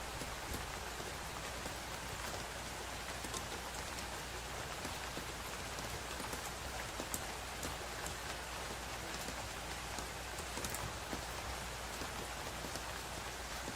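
Steady rain falling and pattering on a surface, a dense even hiss with many individual drops ticking through it.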